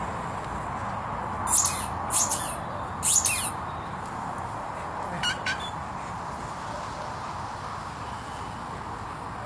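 Short, high-pitched bird squawks: three about half a second to a second apart, then two quick ones a couple of seconds later, over a steady hiss.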